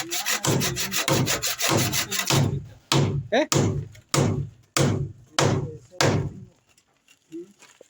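Handsaw cutting through timber: quick back-and-forth strokes at first, then slower separate strokes about two a second, stopping about six and a half seconds in.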